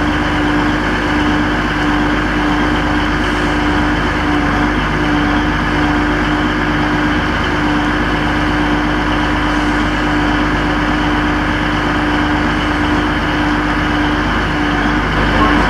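Diesel train engine running with a steady drone and a constant hum, unchanging throughout.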